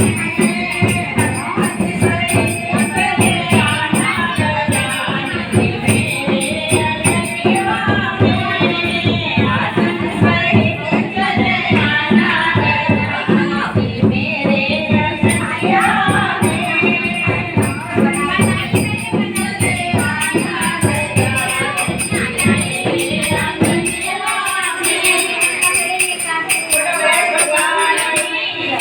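A female singer leads a Ganesh bhajan over a steady, fast percussion beat. The percussion drops out about five seconds before the end while the singing goes on.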